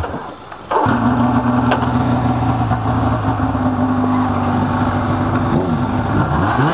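Snowmobile engine running at a steady speed from under a second in, its pitch dipping and rising again near the end as the throttle changes.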